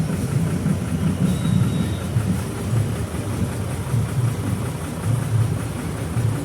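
A heavy vehicle engine running at low revs: a steady, uneven low rumble with no horn sounding.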